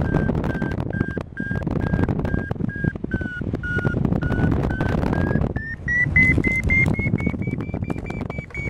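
Paragliding variometer beeping in a quick chain of short beeps, signalling climb in a thermal; about six seconds in the beeps rise in pitch and come faster as the climb strengthens. Wind rumbles over the microphone throughout.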